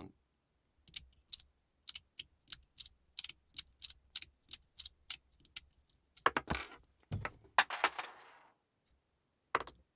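Two-piece 'crunchy' Fidget Boy magnetic slider fidget slid back and forth: a run of sharp clicks about three a second, then a few louder, rougher slides, and one last click near the end. Its two-piece build gives a quieter crunch, middle of the road between a silent and a crunchy slider.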